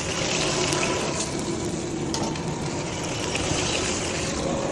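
Chicken pieces frying in hot oil, a steady dense sizzle.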